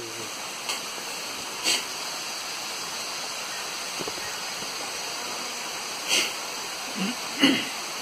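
Steady rush of a waterfall cascading down a rock face, with a few short sharp noises close by, about two seconds in and twice near the end.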